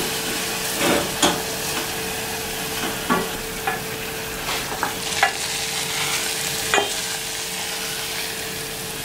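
Wooden spoon stirring and scraping a stainless steel saucepan of thick cooked-down chocolate and butter mixture, with several short sharp knocks and scrapes of the spoon against the pot over a steady sizzling hiss.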